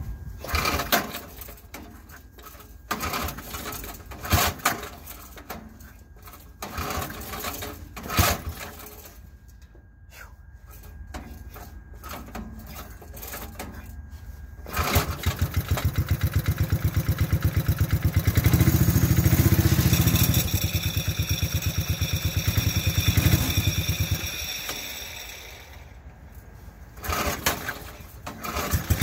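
Cold start of a Huffy mini racer mower's 5 HP Briggs & Stratton engine by its recoil pull cord: several separate pulls over the first fifteen seconds, then it catches and runs with a rapid firing beat. It revs up for a few seconds, falls away briefly near the end and picks up again.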